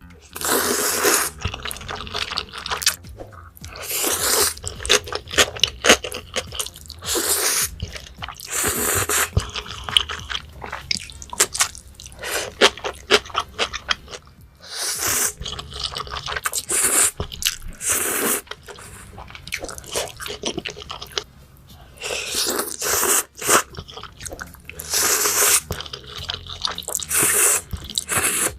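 Close-miked eating: crunchy food being bitten and chewed, with loud crisp crunches coming in clusters separated by brief pauses.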